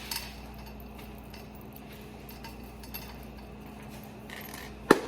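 Seasoning containers clinking against a small mixing bowl as spices are added, a few light clinks, then one sharp, louder clink near the end.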